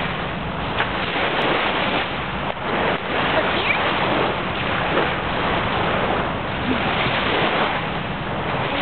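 Small waves breaking and washing up the shore: a steady rush of surf.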